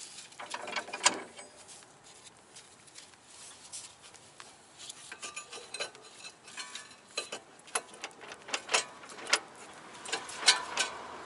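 Irregular metallic clicks and clinks of a front brake caliper and its bolts being handled and fitted over the brake rotor. They are sparse at first and come more often in the second half, with sharp knocks about a second in and near the end.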